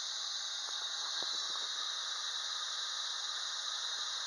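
Lathe running at about 1180 rpm with a repaired driveshaft spinning in it, its yoke collar carrying a welded-on balancing weight: a steady high hiss, with a few faint ticks about a second in.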